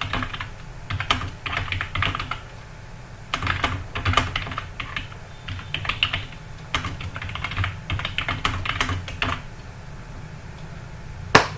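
Fast typing on a computer keyboard: bursts of rapid keystrokes with short pauses between them. The typing stops about two seconds before the end, and a single sharp click follows near the end.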